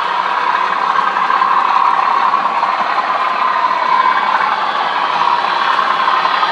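Model railway diesel locomotive sound playing steadily from a model loco's small onboard speaker, thin and without bass, mixed with model trains running on the track.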